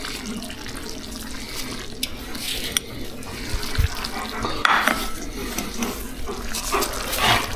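Chicken and tomato stew simmering in a pan with a steady bubbling hiss, while a utensil clinks and scrapes against the pan a few times as a herb-and-garlic mixture goes in.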